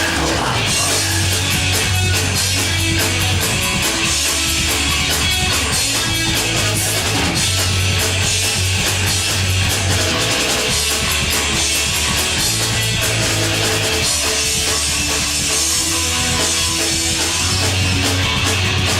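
Punk rock band playing live: distorted electric guitars, bass and drum kit, with the bass changing notes every second or two and no singing.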